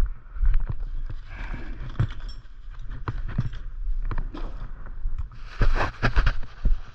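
Rummaging and handling of tools, a string of irregular knocks and clatters with rustling, busiest about six seconds in, as an Allen key is fetched.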